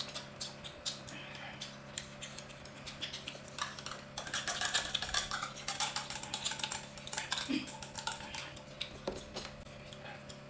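Chopsticks clicking and scraping against bowls, plates and a tin of chili sauce as food is served and eaten: a scatter of light, irregular taps, over a faint steady hum.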